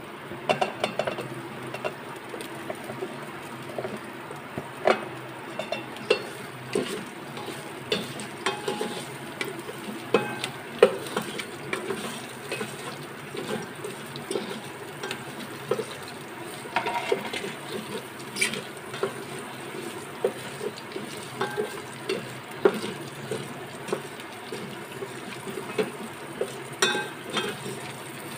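Wooden spatula stirring and scraping in a metal electric rice cooker pot, knocking against the pot again and again at an irregular pace, while cumin, chillies and garlic fry in it with a steady sizzle.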